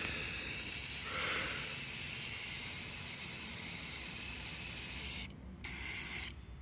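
Aerosol spray paint can spraying in a steady hiss, released briefly a little past five seconds, then a short second burst that stops near the end.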